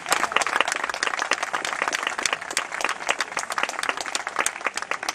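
Audience applauding, with one person's hand claps loud and close over the rest of the crowd.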